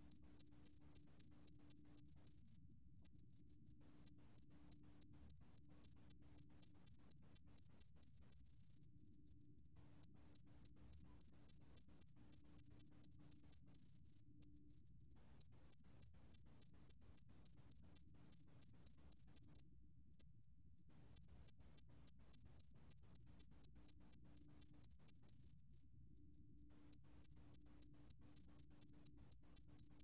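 Sae-geumbit-jongdari cricket singing at 20 °C. Its song is one high, pure tone. It comes as a fast run of short chirps, about five a second, and about every five or six seconds it breaks into an unbroken trill of roughly a second and a half.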